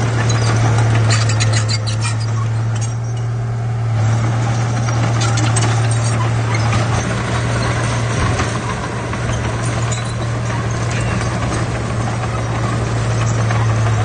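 Komatsu D31P crawler bulldozer's diesel engine running under load as it pushes earth and rock fill, a steady low drone with irregular clanking and rattling from the tracks and the rocks throughout.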